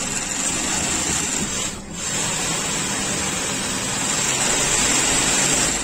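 Industrial shoe-stitching sewing machine running steadily as it sews a fabric shoe strap, with a brief pause about two seconds in before it carries on.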